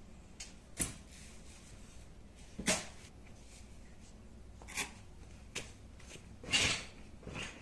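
Scattered handling noises: about half a dozen short taps and knocks, with a brief rustle near the end, as the tablet, keyboard and packaging are handled.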